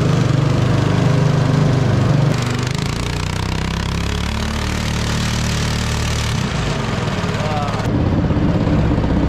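Single-cylinder 212cc Honda-clone four-stroke engine driving a homemade jet unit, running loud and steady; its revs and level drop a little about two seconds in. The engine is labouring, struggling to push the boat along.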